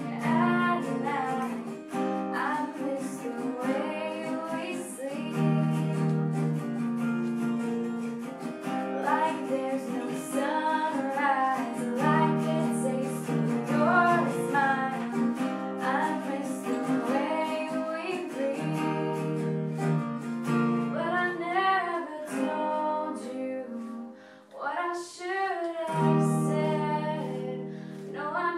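A young woman singing while strumming an acoustic guitar, with a brief pause near the end.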